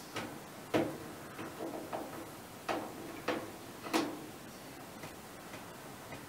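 Irregular clicks and light knocks of parts being handled and fitted inside an open clothes dryer, about eight in the first four seconds, then only a few faint ones.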